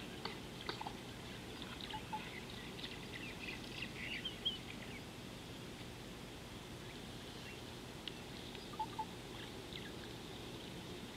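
Small birds chirping in scattered short calls over a steady low outdoor background hiss. The calls come thickest in the first five seconds, then a few more about eight to ten seconds in.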